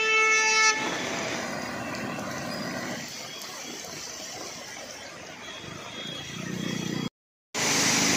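A vehicle horn sounds briefly at the start, then a steady wash of rain and traffic on a flooded street. After a short dropout near the end, a louder rushing splash as vehicles plough through the flood water.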